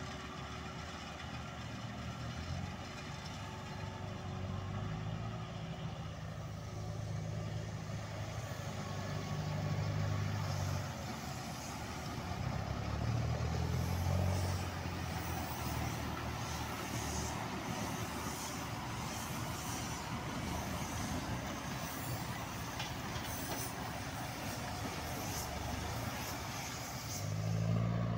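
Massey Ferguson 5455 tractor's four-cylinder diesel engine running under work while collecting haylage, its low drone swelling and easing several times as the load changes.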